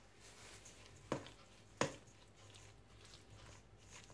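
A metal spoon stirring a minced chicken and breadcrumb mixture in a stainless steel bowl. It knocks sharply against the bowl twice, about a second in and again under a second later.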